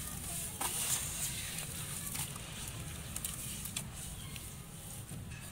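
Wet sand and cement clumps crushed by hand and crumbling into a basin of water: gritty crackles and soft wet patters, busiest in the first second or so.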